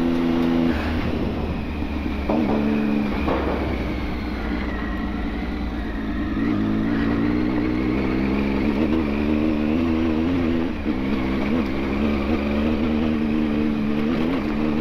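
Motorcycle engine running as the bike rides off, its pitch dropping away and coming back a few times as it changes speed, over a steady low rumble.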